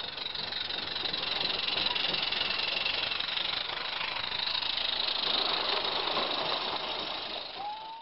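Roundhouse G-scale live-steam locomotive passing close by: a steady hiss of steam with the clatter of its train on the track, growing louder over the first couple of seconds and easing off near the end.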